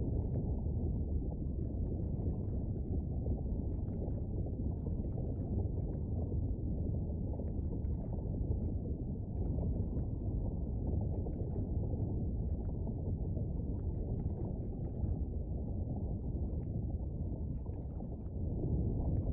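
Volcano-and-lava ambience sound effect: a steady low rumble with faint, irregular crackling over it, growing a little louder near the end.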